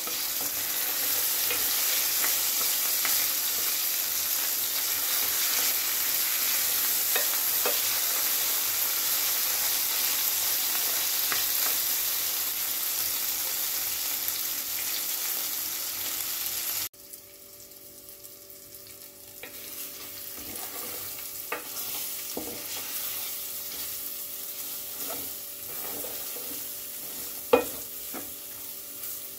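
Onions, tomatoes and spices sizzling in hot oil in a stainless steel pot, stirred with a spatula. The sizzle drops off suddenly about two-thirds through, leaving quieter frying with scattered scrapes and a sharp knock near the end.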